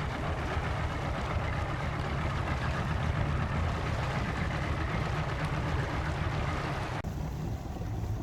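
Boat running on the lake under outboard power: a steady low engine rumble under a rush of wind and water. The sound shifts abruptly about seven seconds in, with less hiss after the change.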